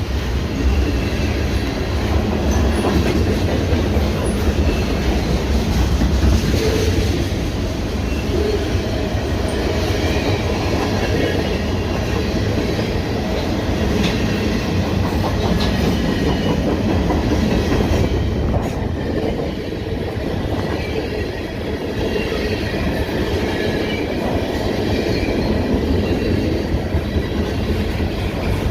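Freight cars of a CN manifest train rolling past, the wheels clattering steadily over the rail.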